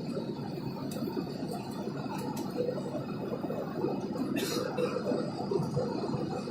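Steady cabin noise of a passenger jet in flight, with a short high sound falling in pitch about four and a half seconds in.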